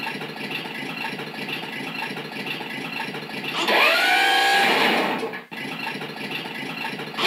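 Mattel Ultimate Justice League Batmobile remote-control toy's motors whirring as it shifts into off-road mode and lifts its body, with a rising whine about three and a half seconds in.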